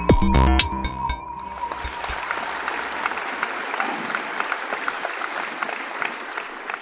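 Electronic intro music with a heavy beat, ending about a second in, followed by an audience clapping, which fades toward the end.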